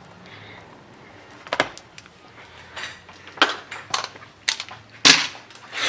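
Scattered light clicks and taps of a tablet and small tools being handled on a workbench, about seven in all, the sharpest about five seconds in.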